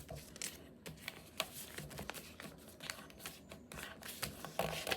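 A sheet of printer paper being unfolded, squashed flat and creased by hand: scattered light crackles and taps, with a louder rustle near the end.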